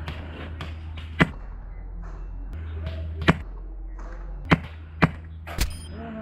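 Single shots from a Wolverine MTW HPA airsoft rifle: five sharp cracks at irregular spacing, two of them close together near the end, over a low steady hum.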